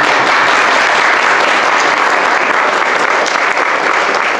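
Audience applauding, a dense, steady clapping that breaks out at once and keeps going.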